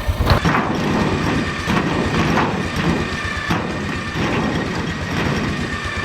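Quad bike (ATV) engine running while its winch pulls, with a steady whine and irregular knocks every half second or so, the sound of the caravan shell being torn apart.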